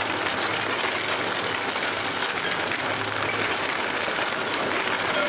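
Industrial twin-shaft shredder crushing a car: a steady, dense crunching and crackling of metal being torn, over a low machine hum.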